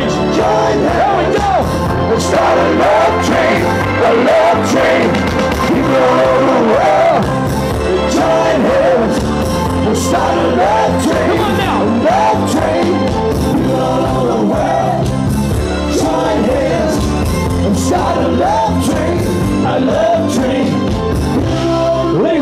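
Live band playing with a male lead singer on a microphone over a steady bass and drum beat.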